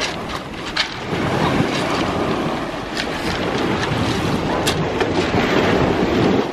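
Sea waves breaking and washing over shingle against a wooden groyne, with wind buffeting the microphone. A few sharp clicks stand out, about a second in and twice more later.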